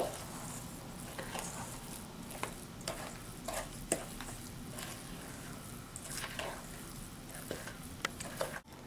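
Wooden spoon stirring a thick blondie batter in a stainless steel mixing bowl: irregular soft scrapes and squelches with the odd tap of the spoon on the bowl, after a sharp click as it begins.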